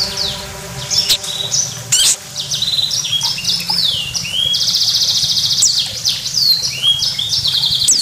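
Small parrot chirping and chattering: a quick run of high, sharp chirps, falling whistled notes and short buzzy trills.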